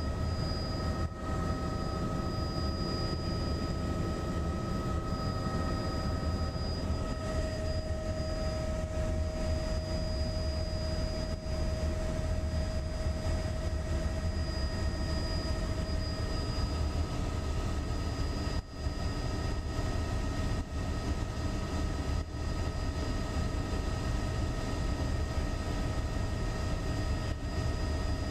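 Helicopter in cruise flight heard from inside the cabin: a steady drone from the rotor and engine with several high, steady whining tones over it, briefly dipping a couple of times.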